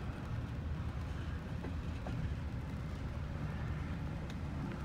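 Double-stack intermodal freight train rolling slowly past, a steady low rumble muffled through a closed car window, with a few faint ticks.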